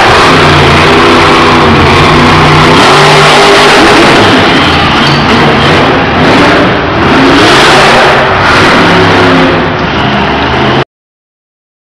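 Monster truck engines revving hard, the pitch climbing and falling with the throttle, loud enough to hit the top of the recording. The sound cuts off suddenly near the end.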